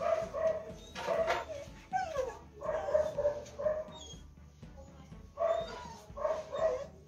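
A dog whining and yipping in a string of short, high calls, some sliding down in pitch, with a brief pause midway.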